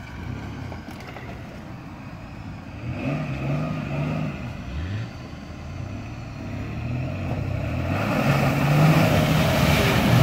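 Mitsubishi Pajero II convertible's engine revving up several times as it drives through deep mud. From about eight seconds in it gets louder under steadier throttle, with the churn and splash of tyres pushing through mud.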